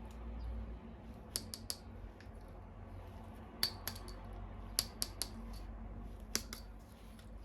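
Sharp clicks and taps in four quick clusters of two or three, from hard plastic toy parts being handled, over a low steady hum.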